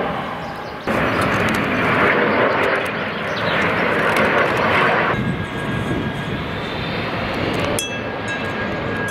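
Engines of jet airliners passing low on approach, first a CRJ regional jet and then a Boeing 777: a steady rushing noise with a faint high whine. The sound changes abruptly about a second in, again around five seconds and near eight seconds, where one recording is cut to the next.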